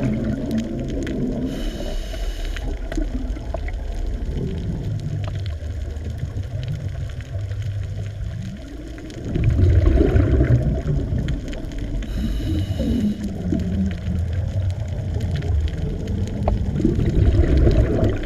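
Underwater ambience soundtrack: a low, continuous rumble of moving water with slow wavering glides in pitch. It dips briefly about eight seconds in, then swells again.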